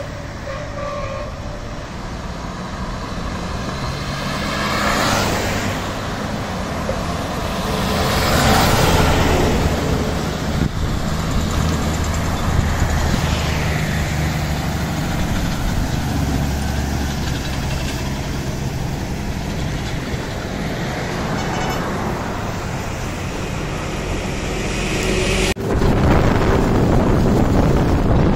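Heavy trucks driving past on a highway, engine and tyre noise swelling and fading as each one goes by, with a brief horn at the start. Near the end the sound cuts suddenly to steady road and wind noise from inside a moving vehicle.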